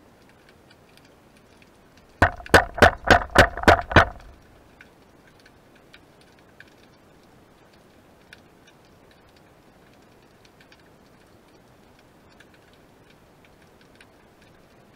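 Underwater ambience: faint, scattered clicking throughout, typical of snapping shrimp on a rocky reef. About two seconds in comes a loud run of seven quick, pitched pulses, roughly three or four a second, lasting about two seconds.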